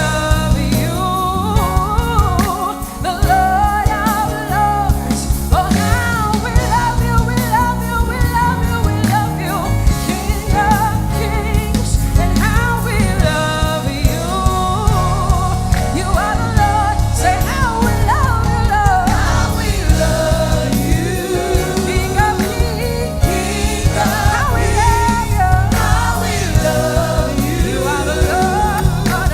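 Live gospel worship music: a lead vocalist and backing choir singing over a band, with steady bass and keys underneath.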